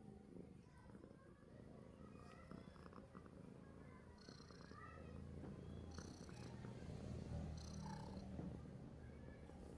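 Domestic cat purring: a faint, low, continuous rumble that grows a little stronger about halfway through.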